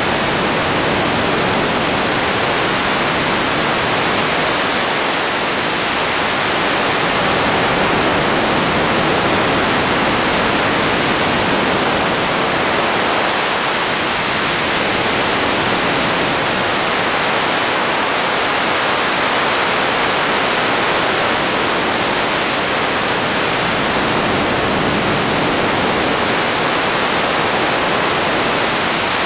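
Radio static: a steady, loud hiss of noise with slight slow swells in level.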